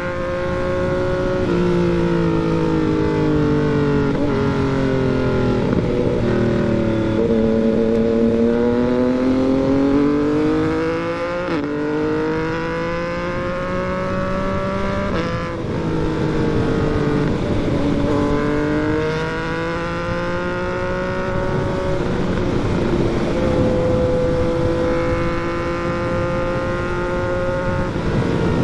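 Yamaha MT-09 inline three-cylinder motorcycle engine under way, its pitch rising and falling as it accelerates and eases off, with several abrupt pitch changes at gear shifts and a few stretches of steady cruising.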